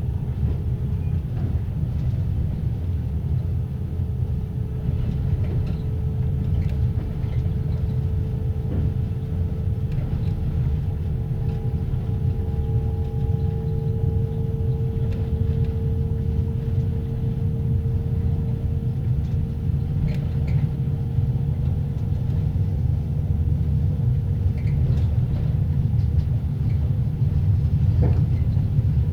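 Heard from inside a closed compartment of a passenger sleeping coach: the low rumble of the moving train, with the coach's axle-driven generator whining in a steady tone that edges slightly up in pitch, over faint clicking of the wheels over rail joints, as the train slowly picks up speed.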